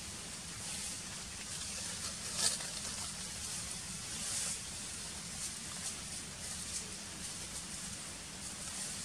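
Steady outdoor background noise: a high hiss that swells briefly several times over a low rumble, with one sharp click about two and a half seconds in.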